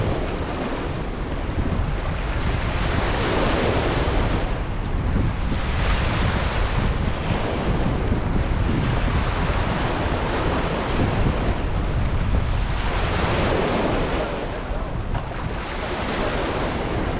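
River waves washing up onto a rocky shore, swelling and easing every few seconds, with wind buffeting the microphone.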